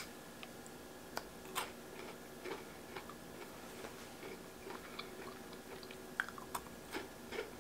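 Faint chewing and biting of a thick chocolate-coated Pocky biscuit stick: scattered soft crunches and small clicks, a second or so apart.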